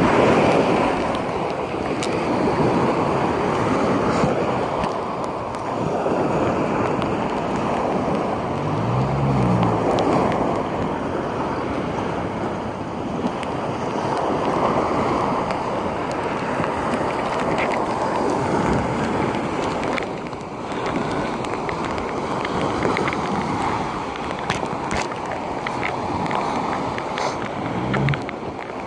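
Surf breaking and washing up a sandy beach, with strong wind buffeting the microphone. The noise swells and eases every few seconds as the waves come in.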